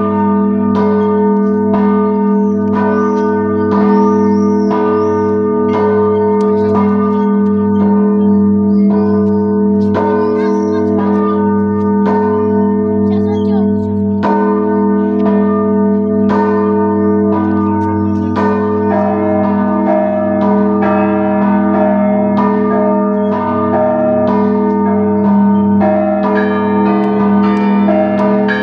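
The large 1690 bell by Pskov founder Fyodor Klementyev, about 220 poods, is struck by its swung clapper (ochep ringing) roughly once a second. Its deep hum rings on continuously between strokes. About two-thirds of the way through, smaller, higher-pitched bells join in with quicker strokes over the big bell's hum.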